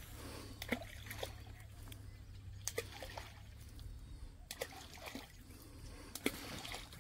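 Balls of groundbait thrown by hand into a pond, splashing into the water several times in short, sharp plops, over a low steady rumble.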